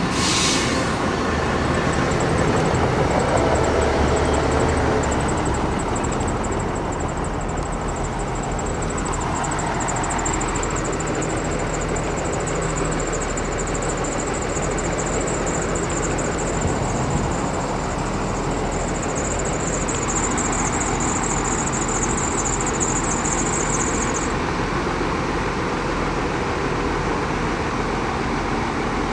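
Diesel engine of heavy earthmoving machinery running steadily, with a thin high whine that cuts off a little over twenty seconds in.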